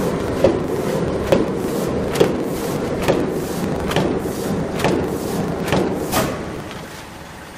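Paper cup creasing and die-cutting machine (MR-930A) running, its press coming down in an even rhythm of thumps a little faster than one a second, each stroke cutting paper cup blanks, over a steady mechanical running noise. The sound fades out near the end.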